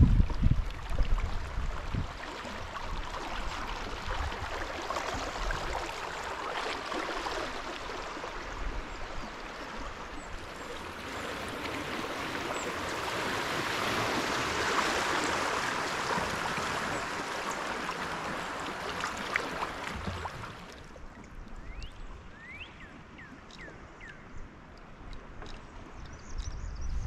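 Jacks Fork River water running, a steady rush that swells to its loudest midway and drops off abruptly about three quarters of the way in, leaving quieter flow with a few short chirps.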